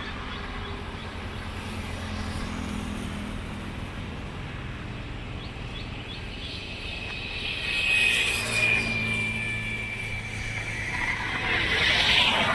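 Road traffic passing on a highway: a steady rumble of engines and tyres, with vehicles passing louder about eight seconds in and again about twelve seconds in.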